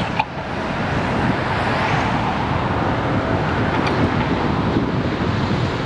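Road traffic noise heard from a moving bicycle, swelling about one to three seconds in as a vehicle goes by, with wind buffeting the action camera's microphone.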